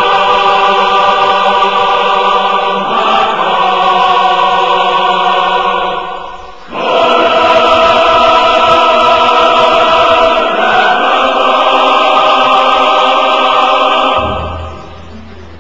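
Music: a choir singing long held chords, the chord changing every few seconds, with a brief break about six seconds in, fading out near the end.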